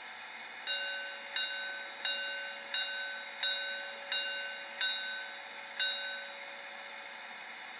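Locomotive bell sample played by the sound decoder of an ESU H0 model T18 (BR 78) steam locomotive through its small onboard loudspeaker: eight strikes about 0.7 seconds apart, each ringing and dying away, the last a little later than the rest.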